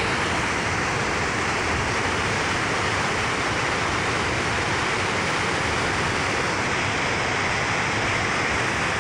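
Water rushing over a low dam spillway and churning into whitewater below, a steady unbroken rush.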